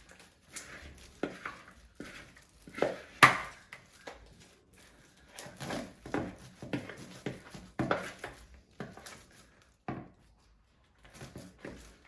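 Slime being mixed in a bowl: irregular wet squishes and knocks against the bowl, one sharper knock about three seconds in.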